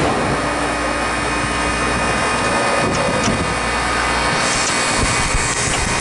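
Refrigeration condensing unit running: a steady low compressor hum under an even rush of air and machine noise. The deepest part of the hum drops away about four and a half seconds in.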